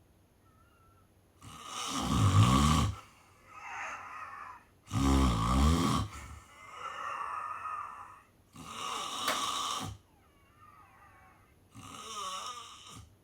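Snoring in sleep: a series of breaths in which two loud, rough, low snores come about three seconds apart, with softer breaths between and after them.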